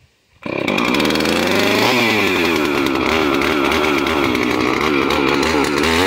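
Husqvarna two-stroke chainsaw running loud, coming in abruptly about half a second in. Its engine pitch wavers and dips as the throttle is worked, with the saw held clear of the wood.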